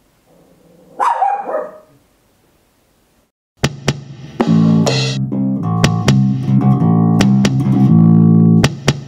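A Papillon's bark about a second in. Then, from about three and a half seconds in, music with bass and guitar notes and drum hits.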